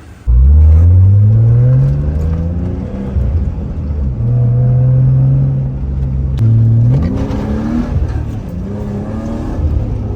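BMW E36 engine pulling hard under acceleration: it comes in suddenly and loud, its pitch climbing over the first couple of seconds, holding steady for about two seconds in the middle, then climbing again near the end.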